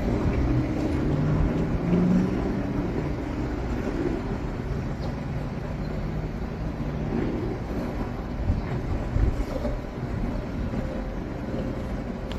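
Monsoon storm wind rumbling and buffeting, a steady low rumble with a faint hum that swells about two seconds in and fades.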